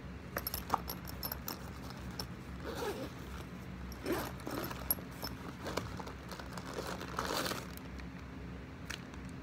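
A small fabric backpack being unzipped and rummaged through: a zipper, scattered clicks and rustles, and the crinkle of a plastic pack of wet wipes being taken out.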